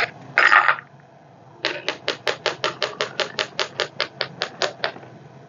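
A hand tool tapping rapidly and evenly, about six knocks a second for some three seconds, on the carbon-clogged exhaust filter of an inverter generator, knocking the carbon loose during cleaning. A short loud scrape comes about half a second in.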